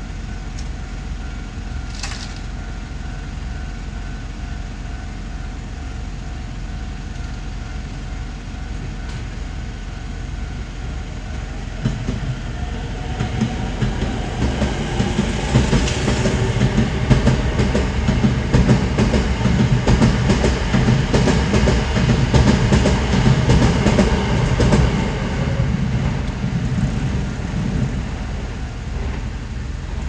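Japanese railroad-crossing warning bell ringing steadily as a Hankyu electric train approaches and passes over the crossing. The train's rumble builds from about twelve seconds in, its wheels clatter over the rail joints through the middle and later part, and it fades near the end.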